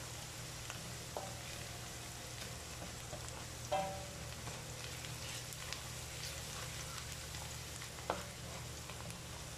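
Chopped garlic and ginger sizzling gently in oil in a stainless steel pan, browning. Three ringing clinks of the spatula against the pan as it is stirred, the loudest about four seconds in.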